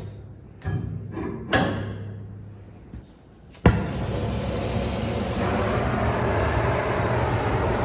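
Steel plates clanking as they are handled, a few ringing knocks. About three and a half seconds in, a sharp click and then a loud, steady, harsh hissing rush as a metal-cutting tool starts cutting the bevel into the steel plate.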